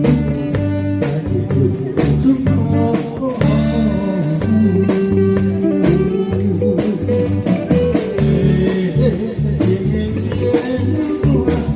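A band playing an instrumental passage: guitar carrying the melody over pulsing bass notes and a steady drum-kit beat.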